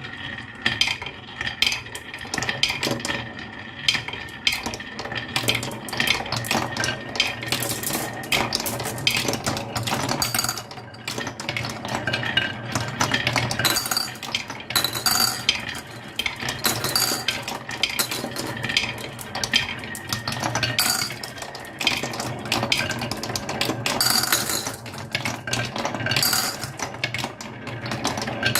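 Many marbles rolling and clattering down a marble run's tracks: a steady rolling rumble under constant overlapping clicks and clinks.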